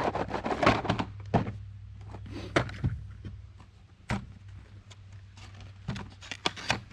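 A 12-gauge shotgun and its shells being handled: a string of light clicks and knocks of varying strength, with no shot fired.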